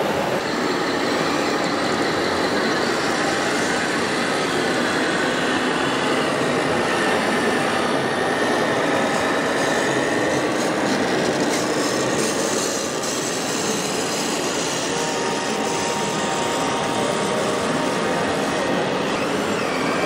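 Steady din of a busy exhibition hall, with radio-controlled scale construction vehicles running under a constant mix of background noise; no single sound stands out.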